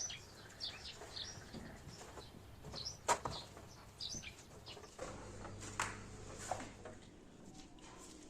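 A small bird chirping repeatedly in short high notes, with a few sharp clicks or knocks in between, the loudest about three seconds in.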